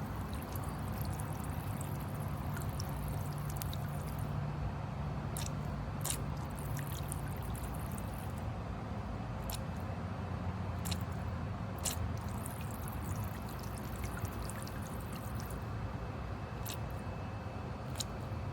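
Solar fountain pump's water jets splashing and trickling into a bird bath, with a steady patter and scattered sharper splashes.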